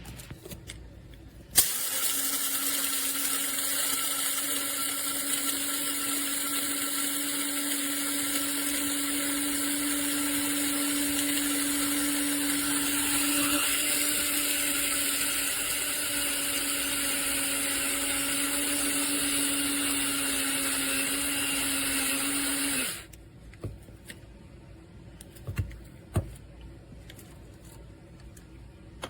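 Amazon Basics electric blade coffee grinder switching on with a click and running its stainless-steel blades at a steady whine for about twenty seconds, then cutting off. A few light clicks and knocks follow near the end.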